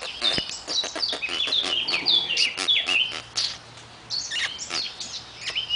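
Small monkeys chirping: many short, high-pitched calls that fall in pitch, coming quickly one after another, with a few sharp clicks among them.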